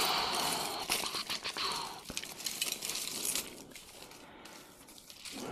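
Hands rummaging through a pile of costume jewelry: a crinkling rustle for about the first two seconds, then light clicks and clinks of beads and metal pieces, growing quieter near the end.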